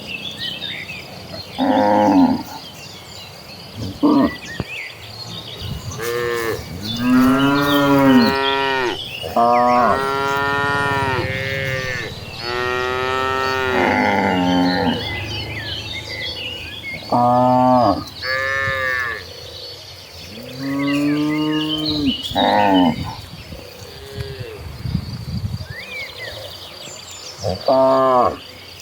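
A herd of cattle mooing: about a dozen long moos from several cows, some overlapping. Fainter chirps run behind them.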